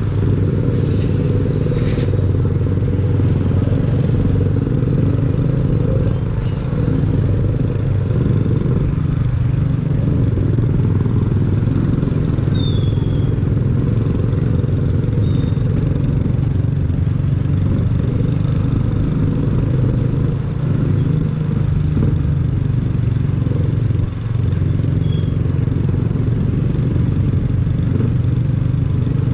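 Motorcycle engine running steadily at low speed, with road and wind noise.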